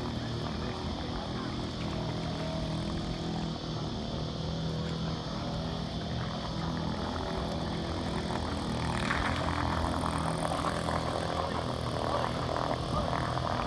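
Small petrol engine of a mini speedboat running steadily with a droning buzz. About nine seconds in it gets a little louder and a rushing, splashy noise joins it.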